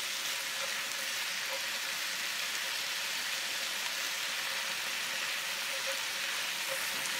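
Chopped cabbage and ground pork sizzling steadily in a frying pan over a weak cassette gas stove, with occasional stirring. The wilting cabbage is giving off water.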